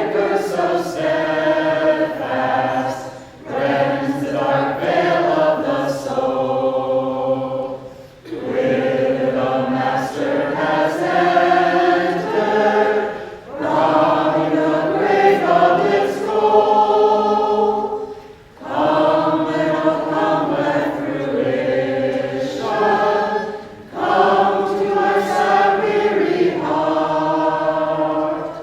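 A small vocal group singing a song together in harmony, in phrases about five seconds long with short breaks between them.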